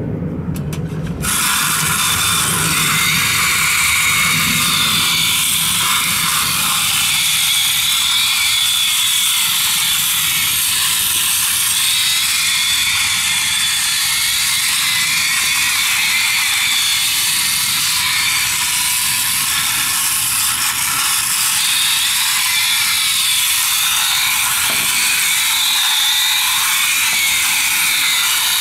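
Battery-powered tin bump-and-go police jeep toy made by Daiya, its electric motor and gears running with a steady mechanical whirring rattle that starts about a second in.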